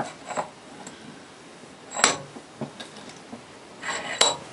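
Metal-on-metal handling of a bicycle hub and steel tools at a bench vise: a few sharp, ringing metallic clinks and knocks, the loudest about two seconds in and another near the end.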